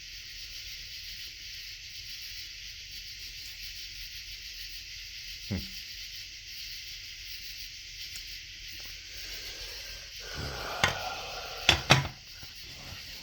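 Steady high hiss of a night insect chorus, with a single click about halfway and a few loud sharp knocks near the end. No howl is heard.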